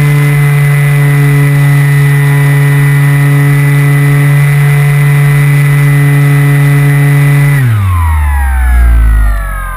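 Radio-controlled model plane's motor and propeller heard from on board, running steadily at high throttle; about three-quarters of the way in the throttle is cut and the whine falls in pitch as the propeller winds down.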